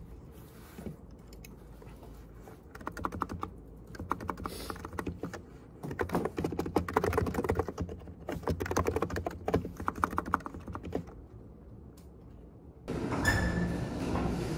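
Typing on a computer keyboard: quick runs of keystrokes with short pauses between them, stopping about eleven seconds in. Near the end a louder, steady background noise takes over.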